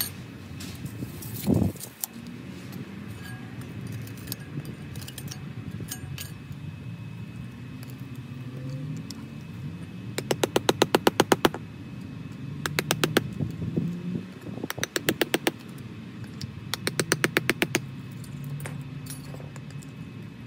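A hammer rapidly tapping a flathead screwdriver down into the sand-filled joint between paver stones, in four quick bursts of about a second each, breaking the polymeric sand seal to free the pavers. A single thump comes about a second and a half in.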